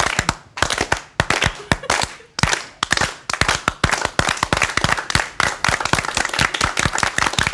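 Hand clapping and applause. At first it is scattered claps a few per second, then it thickens into steady applause from about three seconds in.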